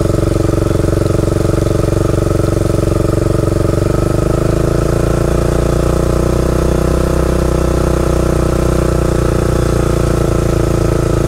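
Honda ATC 350X three-wheeler's single-cylinder four-stroke engine running steadily under way on a freshly installed reconditioned Keihin carburetor, its note changing slightly about four seconds in.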